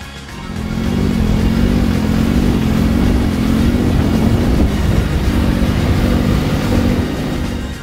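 Massey Ferguson MF5610 tractor's diesel engine running as it drives through deep snow. Its pitch wavers slightly. It comes in about half a second in.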